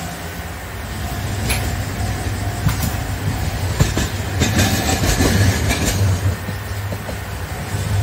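Kagoshima City Tram car passing close by, its steel wheels clicking over rail joints and the crossing, with a dense run of clicks about halfway through as it goes past, over a steady low drone.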